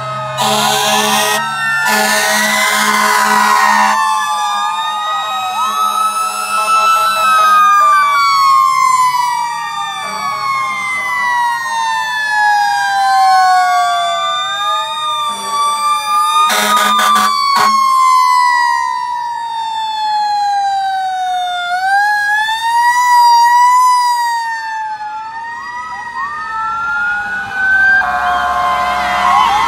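Several fire engine sirens wailing at once, their pitches rising and falling slowly and overlapping, with fire truck air horn blasts at the start, about two seconds in, and again about seventeen seconds in.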